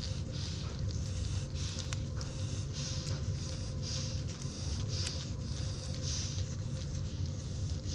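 Newborn puppies suckling, with many small wet clicks and smacks, over a steady low hum. A soft hissing swell comes about once a second.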